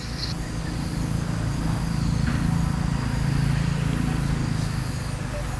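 A low, steady engine drone that gradually grows louder and then fades.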